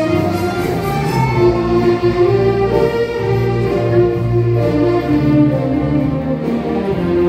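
Instrumental ensemble music playing steadily and loudly, several sustained melodic lines sounding together.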